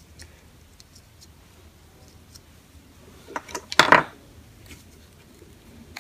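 Hand handling of the small plastic and metal parts of an angle grinder's switch assembly during teardown: light scattered clicks, then a louder cluster of clacks and clatter a little under four seconds in.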